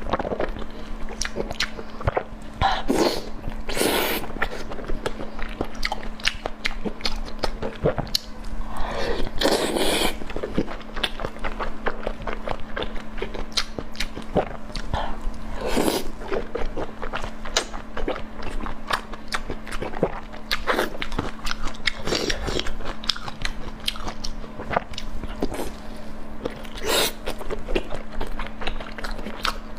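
Close-miked eating: someone biting and chewing with dense wet mouth clicks and crunches, and a few longer noisy stretches of mouth noise along the way.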